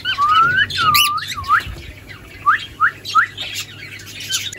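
Cockatiels calling: a series of short rising whistled chirps, with a longer sweeping whistle about a second in.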